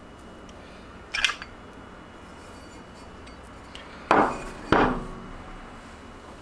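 Halves of an aluminium soft-plastic bait injection mold clinking and knocking as they are pulled apart and laid on the wooden workbench: a short clink about a second in, then two louder knocks about half a second apart a little after four seconds.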